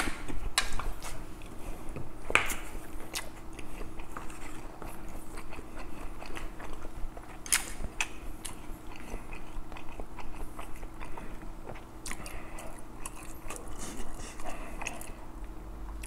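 Close-miked chewing and wet mouth sounds of a person eating kimchi stew with tofu, pork belly and rice, with scattered sharp clicks and smacks. A faint steady hum runs underneath.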